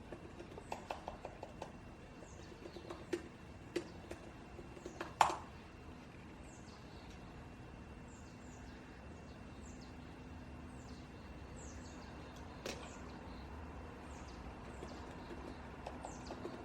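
Quiet desk sounds while studying: scattered light clicks and taps, with a sharper knock about five seconds in, and short high scratchy strokes in the second half, over a faint steady room hum.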